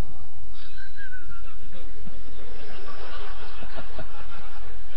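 A steady low rumble under a loose murmur from a gathered audience, with scattered soft chuckles.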